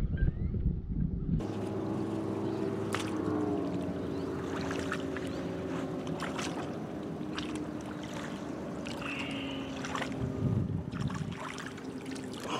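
A motorboat engine running steadily, shifting pitch once about three seconds in, over splashing and sloshing water as a large fish is handled in shallow water. It opens with about a second of low rumble.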